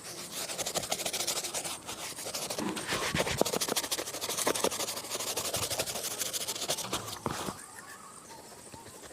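Rapid, repeated rubbing strokes on a shoe during a shoe shine, stopping about seven and a half seconds in.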